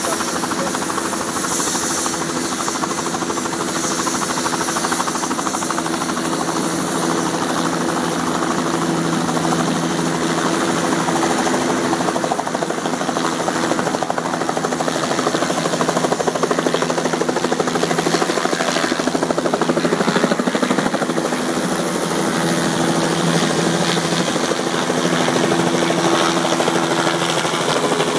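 Hospital helicopter lifting off and flying low overhead: a steady, rapid rotor beat over engine drone, growing a little louder in the second half.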